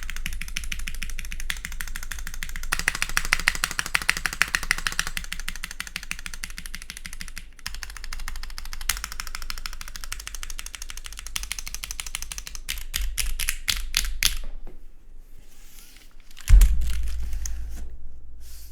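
Typing on a gasket-mounted Geon Works F1-8X v2 mechanical keyboard with an aluminium plate, lubed Gateron Milky Yellow Pro linear switches and GMK keycaps. The key presses come as a fast, dense clatter, then as a run of separate strokes. A single loud low thump comes about three-quarters of the way through.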